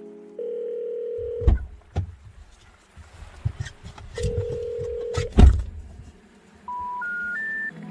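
A steady electronic beep of about a second cut off by a loud knock, then the same beep and knock again. Near the end, three short beeps step up in pitch.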